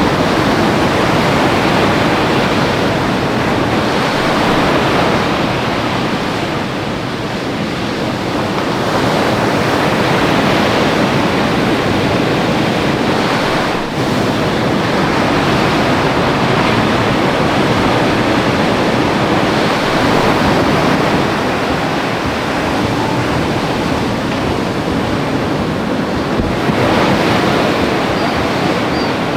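Ocean surf: waves breaking and washing in as a steady wash of noise that eases a little about a third of the way through.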